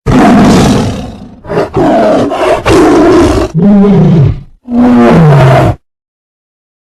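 A large animal roaring loudly, about five rough roars in quick succession. The last two have a clear pitch that bends up and falls away.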